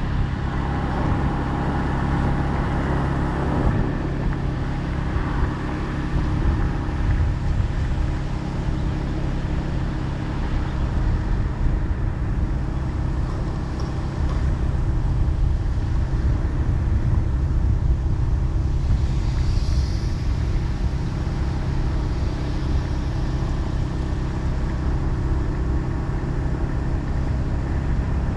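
Engine and road noise of a vehicle driving along a highway, with a steady low engine hum throughout.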